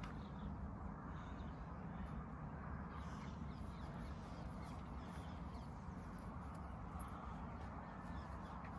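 Birds calling over a steady low outdoor rumble.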